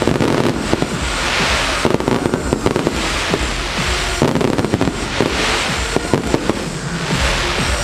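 Aerial fireworks display: a dense run of shell bursts with many sharp bangs, and a wash of crackle swelling every second or two as glittering stars go off. Music from the display's soundtrack plays underneath.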